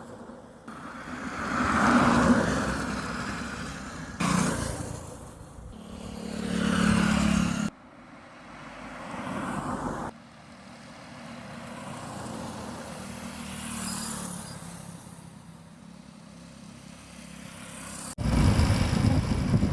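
Road traffic: vehicles passing one after another, each swelling and fading away. The sound changes abruptly several times, as between separate recordings.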